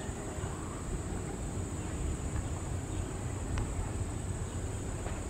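Distant Boeing 737 jet engines running at low thrust as the airliner taxis along the runway: a steady low rumble. A steady high insect drone sits over it.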